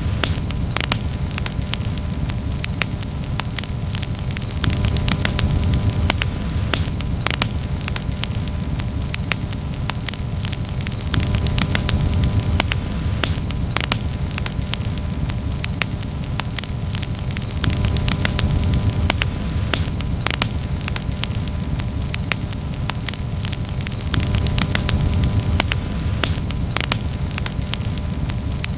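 Campfire crackling steadily, with frequent sharp pops and snaps over a low, even rumble of the burning fire.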